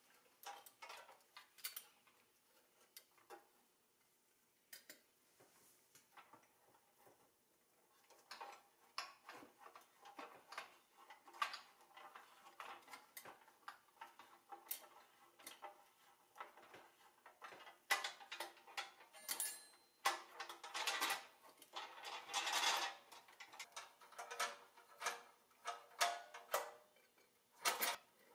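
Pressed-steel Tonka Mobile Clam toy crane worked by hand: irregular metallic clicks, clinks and rattles from its winch, cables and steel clamshell bucket. Sparse at first, then busier and louder through the second half as the bucket is lowered onto a stone.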